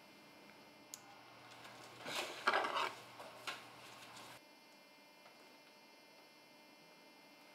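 Faint rustling scrape with a few clicks as a rosette ribbon is pulled off a wall, over a low hum that cuts off partway through.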